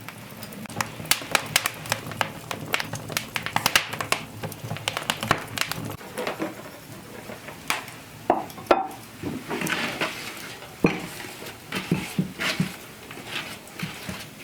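Cooking utensils clinking and scraping against pots and dishes, a quick run of small clicks and scrapes followed by a few sharper knocks.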